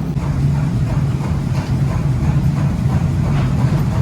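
Steady low mechanical drone of a running machine, with faint light ticks over it.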